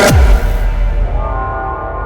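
Electronic intro music: a sharp falling bass drop, then a held deep bass under sustained chords that slowly fade.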